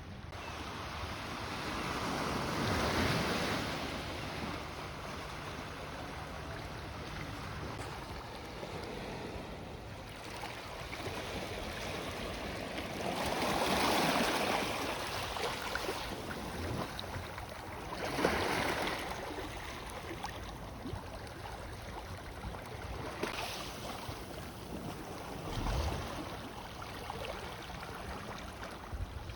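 Sea waves washing onto the shore, the wash swelling and falling back several times, every few seconds.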